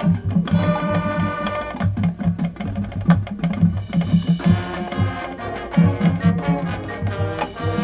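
High school marching band playing its field show: held brass and woodwind chords over regular bass drum hits and drumline strikes.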